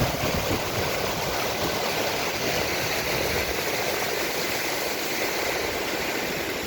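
Duduma waterfall: a steady, even rush of falling water, with an uneven low rumble underneath that eases off about halfway through.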